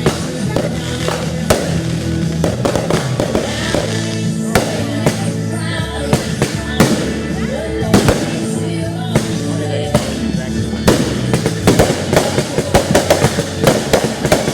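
Fireworks bursting with sharp bangs over music playing. Near the end the bangs thicken into a fast run of crackling reports.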